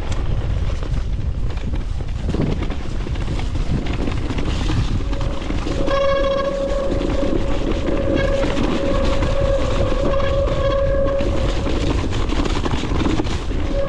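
Mountain e-bike riding down a forest singletrack: a continuous rumble of wind on the handlebar-mounted camera mixed with tyres rolling over rough ground. From about five seconds in to about eleven seconds, a steady high whine from the bike's drivetrain rides over the rumble.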